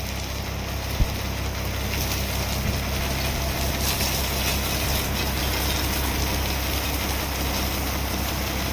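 An engine idling steadily, with a single sharp knock about a second in.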